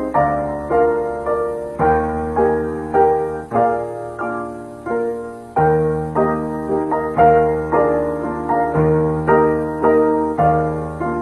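Background piano music: a slow melody of struck notes, each one fading, over lower bass notes.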